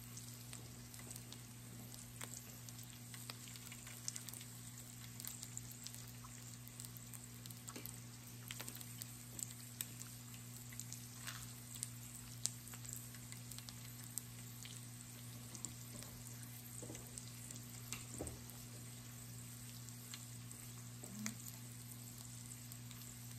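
Pork belly and garlic cloves sizzling in fat on a raclette grill plate: a faint steady sizzle with scattered small pops and crackles, over a low steady hum.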